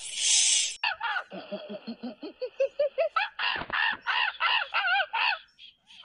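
An animal hisses briefly, then gives a rapid series of short calls, about three a second, each rising and falling in pitch, the run climbing higher and stopping shortly before the end.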